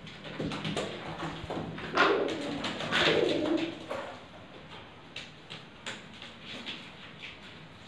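Domestic pigeons cooing in a small loft, with two louder noisy bursts about two and three seconds in and scattered short clicks after.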